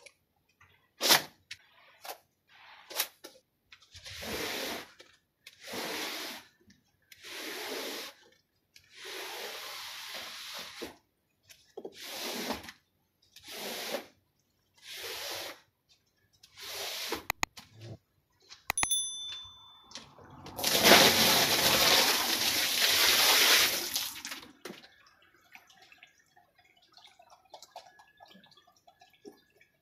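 A long-handled stiff brush scrubs a wet, soapy rug in separate scraping strokes, about one every one and a half to two seconds. Near the end come a few sharp clicks, then a loud rush of water for about four seconds as the rug is rinsed.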